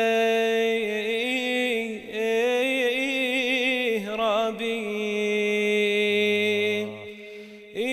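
Male voice singing a long melismatic Arabic mawwal line, holding drawn-out notes with wavering ornaments. The voice breaks briefly about two seconds in and again around four seconds, and drops away near the end.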